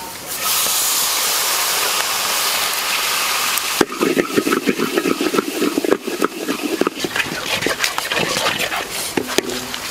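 Liquid hitting a very hot wok: a loud, steady sizzling hiss as it flashes to steam. About four seconds in it turns to a crackling, bubbling sizzle as the mixture is stirred in the pan, easing off near the end.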